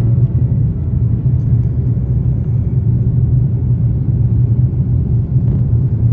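Steady low rumble of an airliner cabin in flight, an even drone of engine and air noise.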